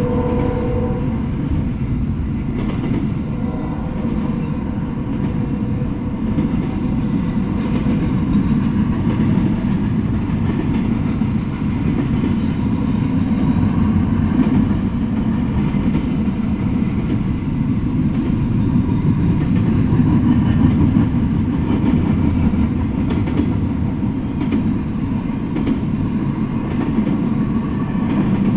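Double-stack intermodal freight train rolling past: a steady low rumble of the well cars' steel wheels on the rails, with scattered faint clacks. A brief squeal dies away about a second in.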